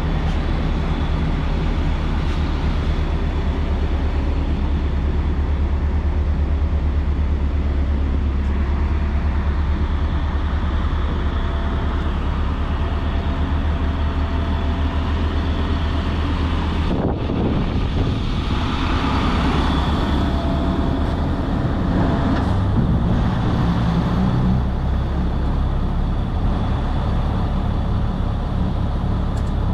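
The 2007 Sterling L7500 Vac-Con vacuum truck's engine running steadily, a continuous low hum whose character shifts about seventeen seconds in.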